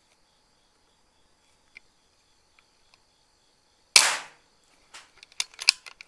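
A single PCP air rifle shot about four seconds in, a sharp crack that fades within half a second, followed by a scatter of sharp clicks and taps.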